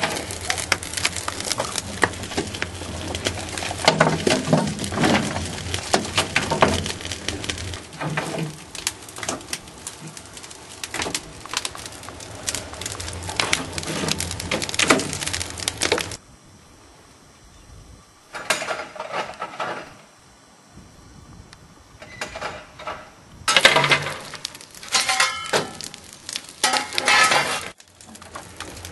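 A wood fire crackles and pops in a steam locomotive's firebox, a dense run of sharp snaps and clicks. It dies down to a few faint crackles for several seconds a little past halfway, then snaps loudly again.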